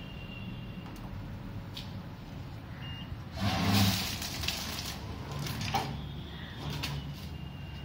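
Automatic granule pouch packing machine running: a steady low motor hum with scattered clicks and clacks from its mechanism, and a louder rattling burst about three and a half seconds in.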